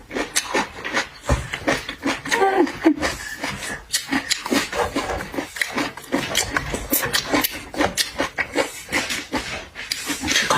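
Close-miked eating: wet chewing, slurping and lip-smacking with many quick clicks, and a short hummed or slurped sound about two and a half seconds in.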